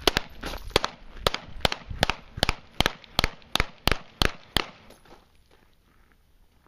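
Glock 17 9mm pistol fired rapidly, about a dozen shots at roughly three a second, during a fast forward-moving drill; the string stops about four and a half seconds in.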